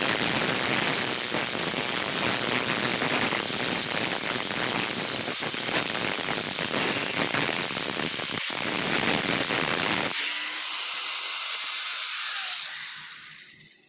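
Electric arc welding on steel: a dense, steady crackling hiss. About ten seconds in, the deeper part of the sound cuts out and the remaining hiss fades away.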